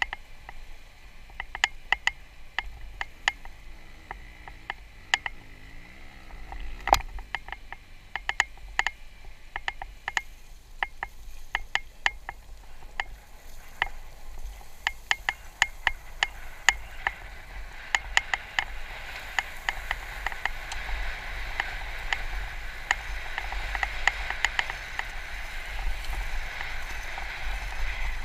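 KTM dirt bike ridden slowly over loose, rocky coal waste: irregular sharp clicks and rattles over a low rumble. A rushing hiss builds about two-thirds of the way through.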